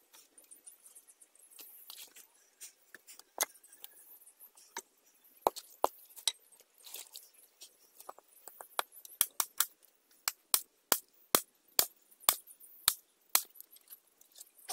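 Sharp, light taps of a hammer on a nail driven into firewood, scattered at first and then coming steadily at about two a second in the second half.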